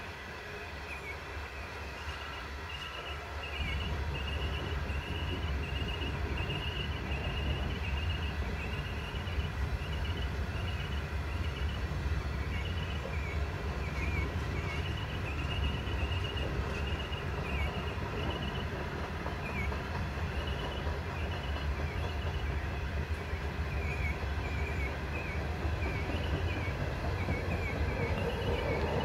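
Indian Pacific passenger carriages rolling steadily across a railway bridge: a steady low rumble of wheels on rail that grows louder about three and a half seconds in. A short high chirp repeats about once a second over the rumble.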